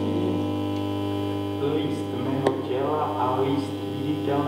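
Steady electrical hum with a stack of steady tones over it. From about a second and a half in, warbling voice-like sounds come and go on top, with one sharp click near the middle.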